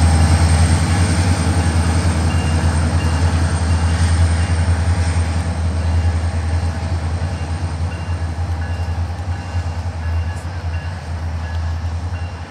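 SunRail commuter train's MP32PH-Q diesel locomotive pulling away, its engine a steady low drone over rail noise that fades gradually as the train recedes.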